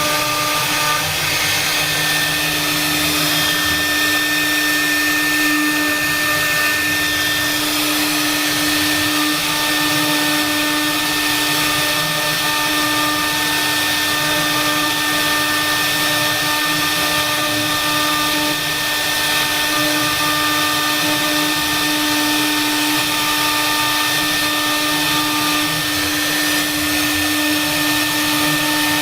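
KH4A CNC router running steadily as it carves a half-round piece: a constant hum holding several fixed tones over a cutting hiss.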